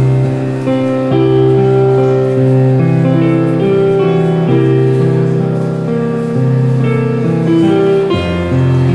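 Yamaha digital piano played live, chords held and changing every second or so.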